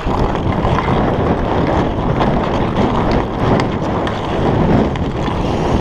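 Hockey skate blades scraping and gliding over snow-dusted outdoor ice, a steady noisy rush, mixed with wind noise on the microphone.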